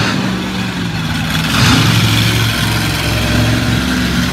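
Monster truck engine running loud, revving up about a second and a half in and holding the higher revs.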